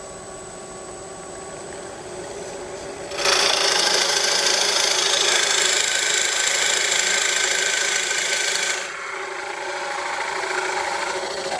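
A wood lathe runs with a steady hum, then a Forstner bit spinning at about 750 RPM bores into a block of wood with a loud rasping cut. About three seconds in, the cutting starts; it eases to a lighter cut a little under nine seconds in and stops near the end.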